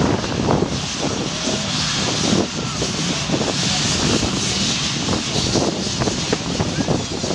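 A pack of two-stroke motocross bikes revving together at the start gate, a dense, continuous roar of many engines at once.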